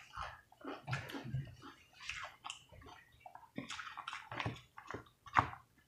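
Wet chewing and lip smacking of people eating fried chicken and bell peppers, in irregular short bursts.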